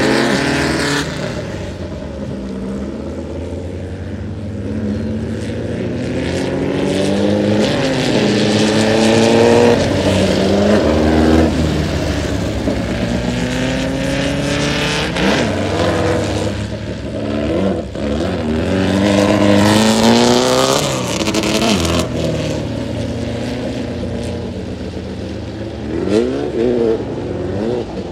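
Tubular VW off-road race buggies running hard, their air-cooled flat-four engines revving up and down again and again. The pitch climbs as they accelerate and falls as they back off.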